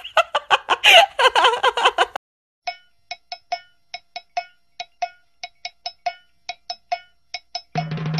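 A muffled voice for about two seconds, then a run of short, clear, ringing pings, about two a second in an uneven rhythm. Music with a steady low note comes in near the end.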